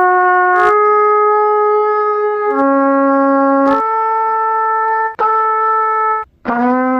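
Trumpet playing a series of long held notes, changing pitch every second or two, with a brief gap before the last note; the player is out of practice after two months without playing.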